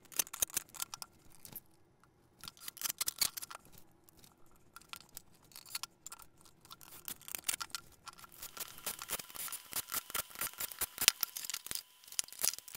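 Irregular clicks and light knocks of wooden shelf parts and small hardware being handled and fitted on a wooden workbench, coming in short clusters that grow denser toward the end.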